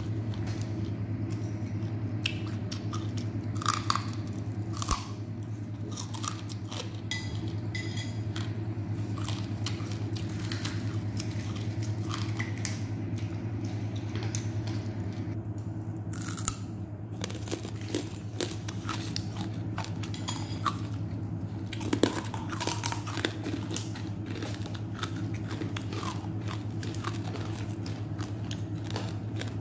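A person chewing crunchy food, fried pork crackling and green papaya salad, with many short, sharp crackles and crunches scattered throughout. A steady low hum runs underneath.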